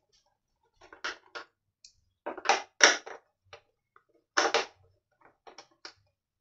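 Phillips screwdriver backing the screws out of an Imusa air fryer's plastic top cover: scattered sharp clicks and scrapes of metal on plastic, coming in small clusters.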